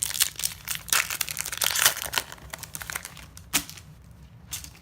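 Foil wrapper of a Yu-Gi-Oh trading card booster pack being torn open and crinkled. The crinkling is densest for the first two seconds, then thins to scattered rustles with a sharp click about three and a half seconds in.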